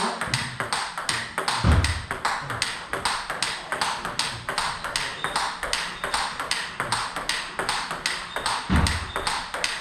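Table tennis rally: the celluloid-type ball clicks off the bats, fitted with a new test rubber, and bounces on the table in a quick, even rhythm of several hits a second. Two low thuds come about two seconds in and near the end.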